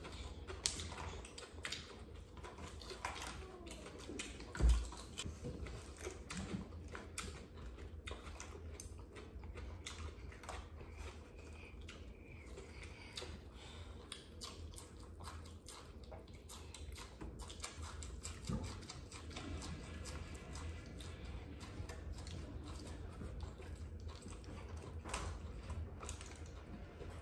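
Mealtime table sounds: a steady run of small clicks and taps as food, skewers and dishes are handled and eaten, over a low steady hum, with one dull thump about five seconds in.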